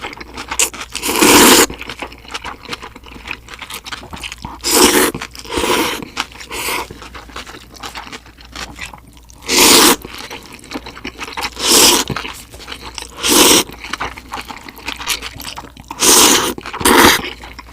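Close-miked crunching bites and chewing of crispy food: loud crunches every second or few, with quieter chewing between.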